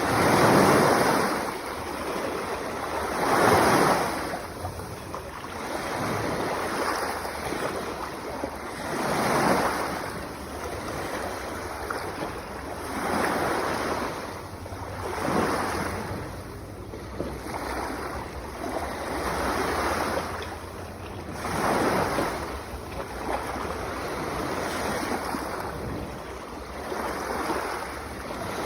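Sea waves washing onto the shore, each surge of surf swelling and fading every few seconds.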